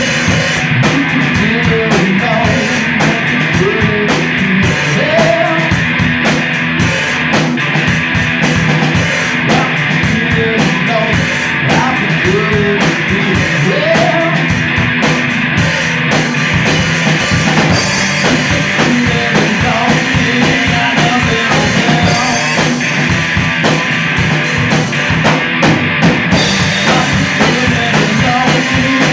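Live rock band playing loud and steady: distorted guitars, bass and a full drum kit, with a voice singing in places.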